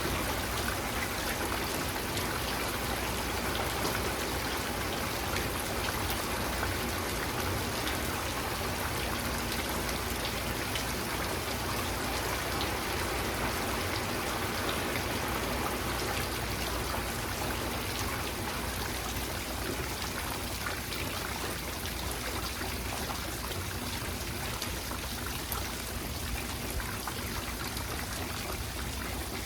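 Steady rainfall, a dense even hiss of drops with scattered individual drop ticks, easing slightly in the second half.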